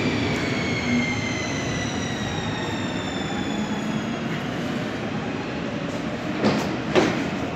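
Helsinki metro train slowing to a stop at the platform: its electric motors whine in several falling tones that fade out about four seconds in, over a steady rumble. Two loud clunks near the end as the doors open.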